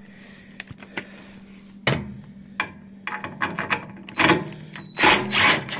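Cordless impact driver run in reverse to loosen a bolt, in short hammering bursts with light metal clicks and knocks between; the longest and loudest burst comes near the end.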